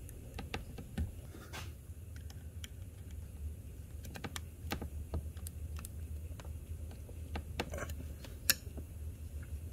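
Irregular small plastic and metal clicks as a nylon zip tie is ratcheted tight with pliers around a CV boot clamp, while a flathead screwdriver clicks and scrapes against the metal clamp to seat it. A sharper click comes near the end, over a low steady hum.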